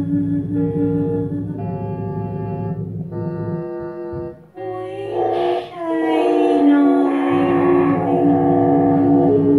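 Experimental ambient music: a low buzzing drone under a slow line of long held notes that step from one pitch to the next. Past the middle, more held notes pile up in a thicker chord, and the drone drops out briefly and then returns.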